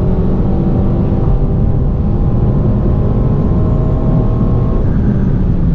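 Renault Mégane 4 RS 280's turbocharged 1.8-litre four-cylinder heard from inside the cabin, accelerating at high speed. It gives a steady engine note over heavy road and wind rumble.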